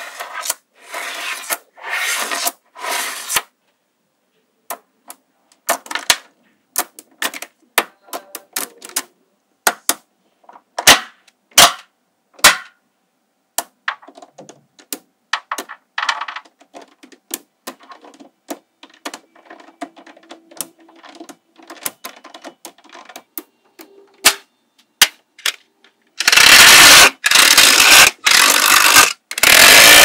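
Small magnetic balls clicking and clacking as chains of them snap onto rows of others, in scattered single clicks and short rattles. About four seconds from the end comes a loud, dense rattle of many balls rubbing and clattering against each other for several seconds.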